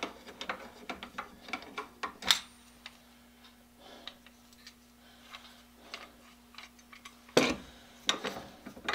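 Metal parts of a band saw's upper axle and tracking-adjustment bracket being handled and fitted together by hand: scattered light clicks and taps, a sharper knock about two seconds in and a louder clunk near the end. A faint steady hum sits underneath from about two seconds in.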